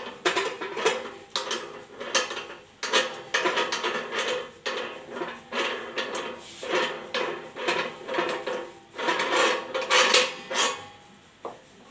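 Metal-and-plastic clinking and clicking from the hub of a box-strapping coil dispenser reel as its metal spokes and centre fitting are worked by hand: irregular knocks and clinks, several a second.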